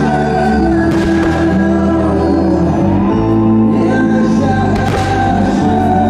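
Music with singing over sustained chords.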